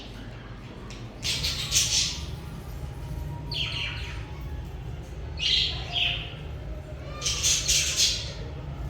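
Budgerigars chirping in four short bursts of high, scratchy chatter, each lasting under a second, over a steady low hum.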